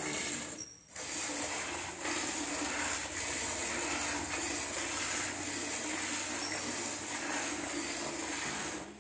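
Hand-milking a Murrah buffalo: milk squirting from the teats into a metal pail that already holds milk, over a steady low hum. A brief dropout about a second in.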